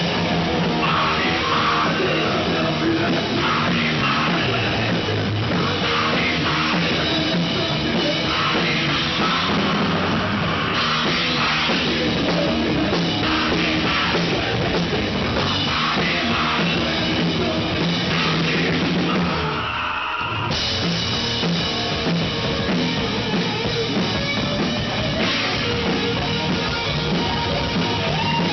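Live heavy rock band playing at full volume: a pounding drum kit with cymbals under distorted electric guitars. About two-thirds of the way through there is a short break of under a second before the full band comes back in.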